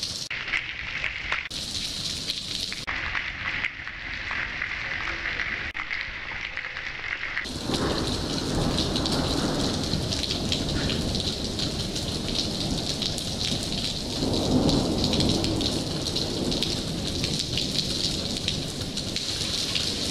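Thunderstorm: rain falling steadily with thunder rumbling. The sound jumps abruptly a few times in the first seven seconds, then the rain grows louder and a deep rumble of thunder swells about two-thirds of the way through.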